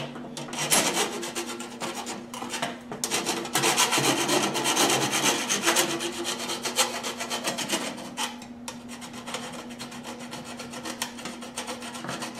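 A hand file scraping back and forth in rapid strokes on a steel whirligig blade, taking the paint finish off down to bare metal as surface prep for welding.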